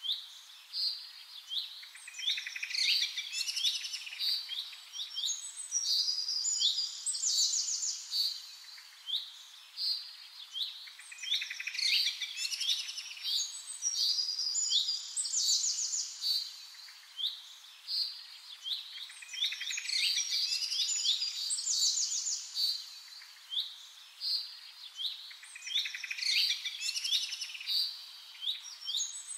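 Birdsong from several small birds: quick chirps and fast trills, in a sequence that repeats about every nine seconds, as a looped background track.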